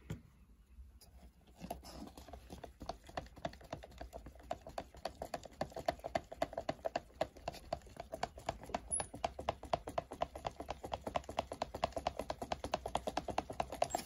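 A stirring stick scraping and clicking rapidly and evenly against the inside of a plastic mixing cup as green-tinted two-part resin is stirred, starting about two seconds in.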